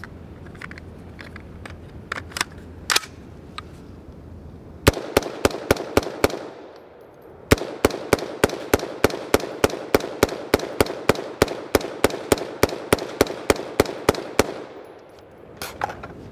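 A BCM AR-15 in 5.56 with direct gas impingement firing fast strings of shots, about four a second. A short string comes about five seconds in, then a brief pause, then a long, even string of about thirty shots that stops shortly before the end; a few fainter scattered pops come before. The rifle is hot, uncleaned and unlubricated after nearly 1,000 rounds, and it is still cycling without a malfunction.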